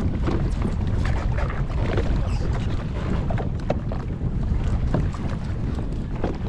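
Steady low rumble of a personal watercraft on the water, with wind buffeting the microphone and frequent short splashes of water against the hull.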